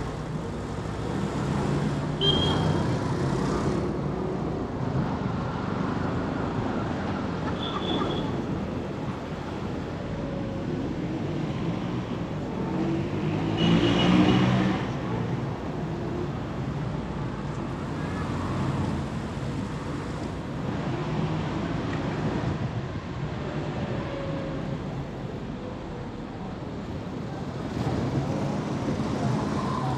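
Busy road traffic: car and truck engines running and passing, louder as a vehicle passes close about fourteen seconds in, with a few short high-pitched beeps scattered through.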